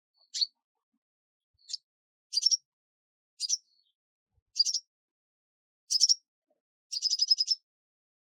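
A small bird chirping: short high calls about once a second, with a quick run of about seven notes near the end.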